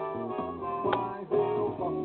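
Background music: a guitar-led song in an instrumental stretch, with no singing.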